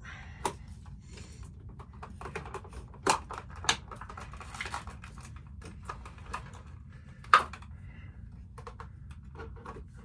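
Packaging being handled and pulled at: irregular plastic clicks, taps and rustling, with a few louder knocks about three seconds in and again past seven seconds.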